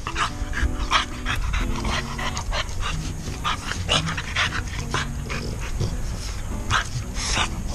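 French bulldogs panting and breathing close to the microphone in short quick breaths, over background music.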